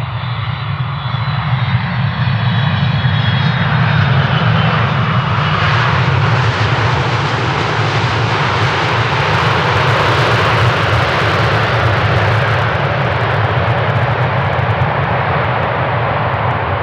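Jet airliner engines, a loud roar that swells over the first few seconds and then holds steady, with a faint high whine falling in pitch at the start.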